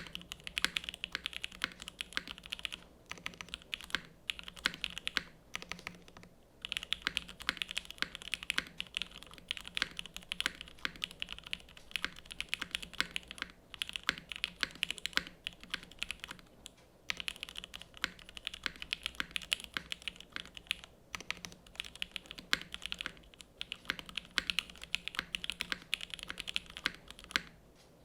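Typing on a Sanction TKL mechanical keyboard with Gateron X R1 linear switches lubed with Tribosys 3204, GMK Dracula keycaps and an aluminium plate in a top-mount case. The keystrokes come in dense runs of several seconds, broken by brief pauses.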